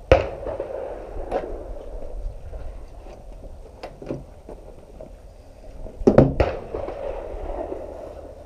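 Scattered sharp clicks and knocks, with a quick cluster of several about six seconds in, over a steady low background rumble.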